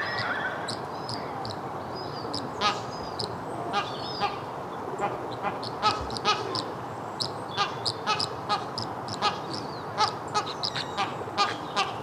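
A flock of Chilean flamingos calling: a dense run of short, goose-like honks, many overlapping, over the constant low hubbub of the flock.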